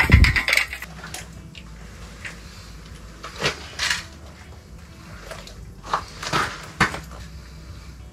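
Knocks and clatter from handling a northern pike and gear on the ice: a loud thump and rattle right at the start, then a handful of separate sharp knocks through the rest.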